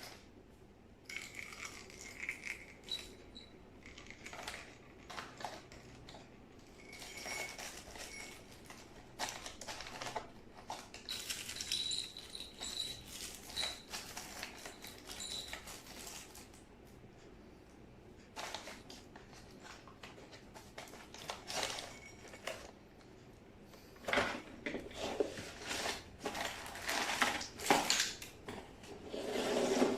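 Scattered small clicks, taps and rustles of objects being handled, coming thicker and louder over the last six seconds or so.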